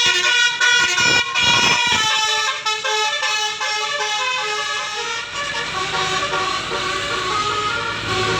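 Bus telolet horn, a multi-tone horn playing a tune: quick short notes for the first two seconds, then longer held notes.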